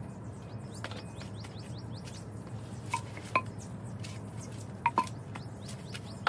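Small birds chirping in quick, short calls throughout over a steady low hum, with a handful of sharp, ringing clinks as outdoor furniture parts are handled, two close together the loudest.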